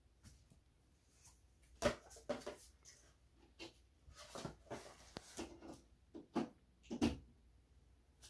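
Handling sounds: a scatter of light knocks and clicks with soft rustling between, the sharpest about two seconds in and a cluster of them near the end.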